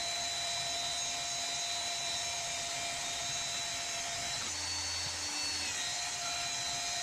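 Band saw cutting a steel flat bar, a steady motor-and-blade whine. The tone shifts briefly about four and a half seconds in, then settles back.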